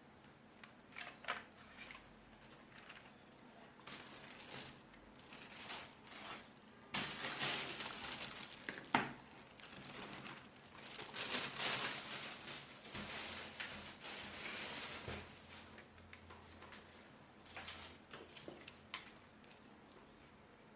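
Packaging being handled and crinkled in irregular rustling bursts, with a few small clicks. It is loudest in the middle stretch.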